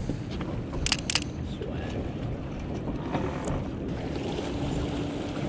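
Steady wind and water noise aboard a small boat, with two sharp clicks about a second in. A low steady hum comes in near the end.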